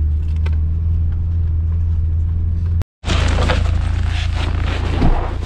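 A vehicle engine running with a steady low drone. After a brief break about three seconds in, it continues under a louder hiss.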